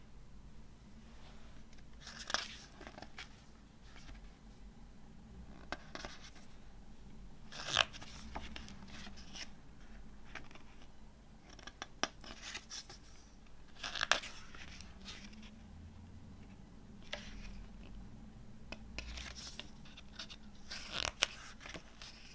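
Paper rustling and swishing as the glossy pages of a CD booklet are handled and turned, in separate short brushes a few seconds apart.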